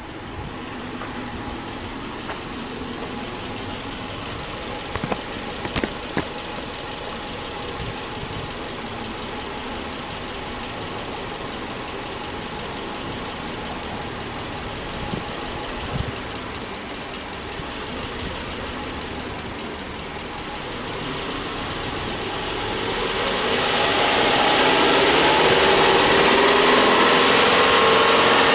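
Subaru EJ25 2.5-litre flat-four (boxer) engine idling steadily, with a few light knocks about five to six seconds in. In the last several seconds it gets much louder as the revs climb slowly.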